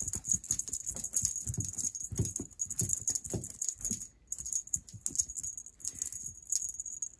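A cat wand toy's crinkly streamers rattling and jingling as it is swished and flicked about, in quick irregular rustles.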